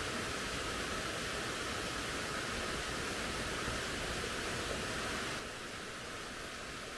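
Steady rushing of stream water, dropping a little in level about five seconds in.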